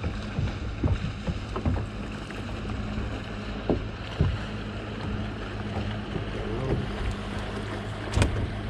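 Boat motor running steadily with a low hum, wind buffeting the microphone, and scattered knocks and thumps on the boat, one sharper one near the end.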